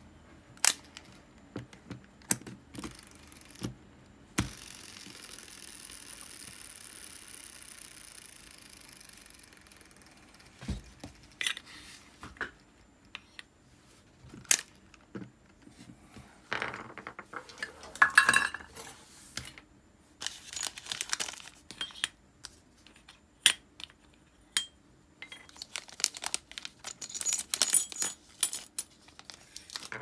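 Abu Garcia Ambassadeur 2500C baitcasting reel being worked by hand: scattered sharp metallic clicks and clinks, and about four seconds in a steady whir from the turning spool and gearing that fades over about five seconds. Denser runs of clicking and rattling follow in the second half.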